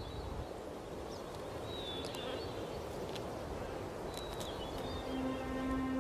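Outdoor ambience with a steady rushing background and a few short, high bird chirps, about two seconds apart. A sustained music tone comes in near the end.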